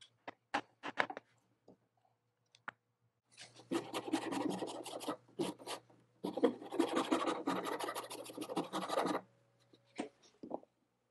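A few light clicks, then a hand rasp scraping quickly back and forth across the end grain of a pecan tenon for about six seconds with a short break in the middle, shaping the tenon to fit its mortise.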